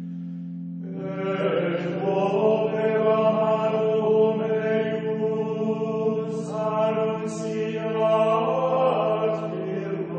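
Background music of slow chanting voices over a steady held drone, the voices coming in about a second in.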